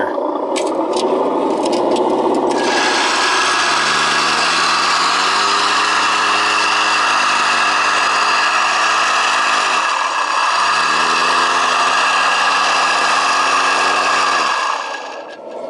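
1/14-scale RC hydraulic vibrating road roller running its motor and hydraulic pump while compacting asphalt patch: a loud, steady buzz with a whine that rises, dips about ten seconds in, rises again and cuts off near the end. Some ticking over the first couple of seconds.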